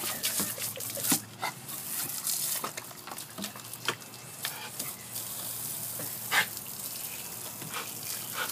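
A dog biting and snapping at running water splashing onto a wooden deck: a steady hiss of water with irregular sharp, splashy snaps, the loudest about a second in and again past six seconds.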